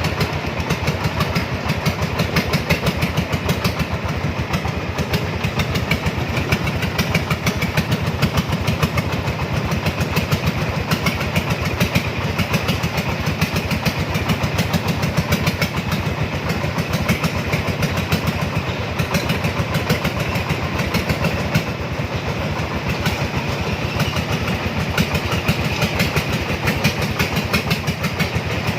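A loaded cargo three-wheeler's engine running steadily under load, a fast, even train of firing pulses with no big changes in speed.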